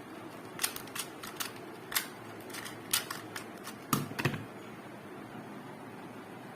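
Quick, irregular plastic clicks of a speed cube's layers being turned, ending with a heavier double knock just before four and a half seconds as hands come down on the Qiyi timer's pads to stop it.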